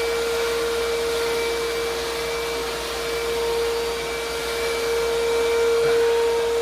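A vacuum cleaner running steadily: a constant whine over a rushing hiss of air.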